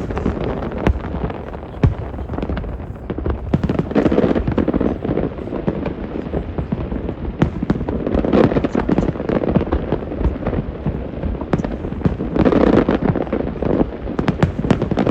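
Fireworks display: a continuous rapid string of bangs and crackles over a low rumble, thickening into dense volleys about four seconds in, around eight seconds and again near twelve to thirteen seconds.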